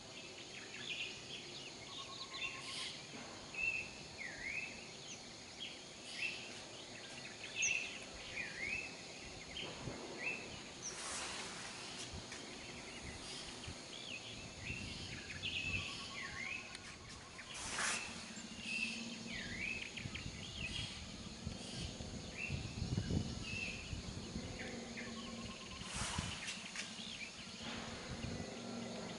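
Birds calling again and again, short chirps with quick down-and-up glides, over steady outdoor background noise, with a few brief rushes of noise.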